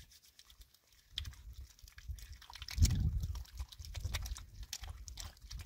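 Water poured from a metal ewer splashing over cupped hands and onto the stony ground as the hands are washed. An irregular low rumble underneath, loudest about three seconds in.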